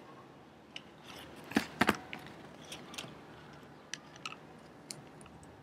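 Hands handling wires and tape: scattered small clicks and crackles, with a cluster of two or three sharper knocks just under two seconds in.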